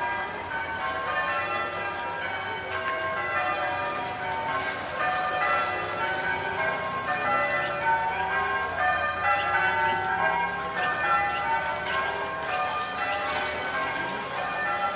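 Church bells ringing a continuous peal, many bells struck one after another without a break.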